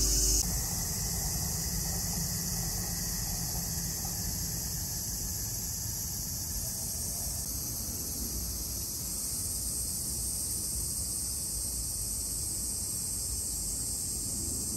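Cicadas singing: a steady, high-pitched chorus drone that goes on without a break, over a low background rumble.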